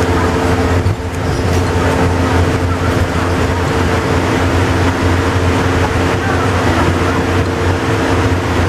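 Volvo double-decker bus heard from inside the lower deck while cruising at speed: a steady engine and drivetrain drone with a low hum and a few steady tones over road and tyre noise, dipping briefly about a second in.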